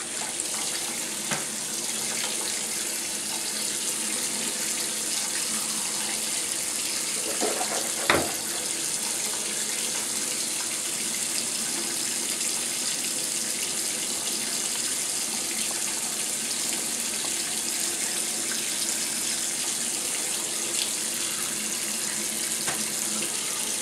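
Bathroom faucet running steadily, its thin stream splashing onto the metal drain stopper of the sink. A single sharp knock about eight seconds in.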